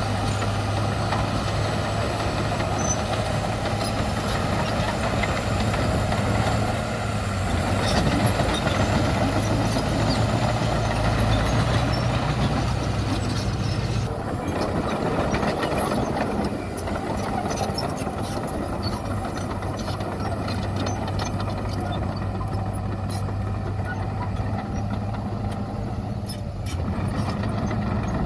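Diesel engines of heavy earthmoving machinery, dump truck and bulldozer, running with a steady low drone and scattered knocks; the higher sounds fall away about halfway through.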